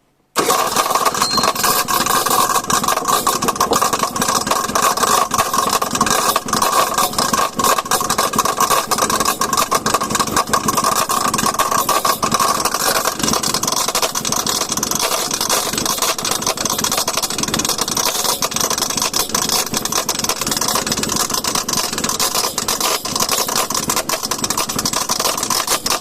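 Mitsuoka K-3 microcar's 50cc two-stroke engine starting and running with a loud abnormal noise, after standing unused for about ten days. Its note changes about halfway through.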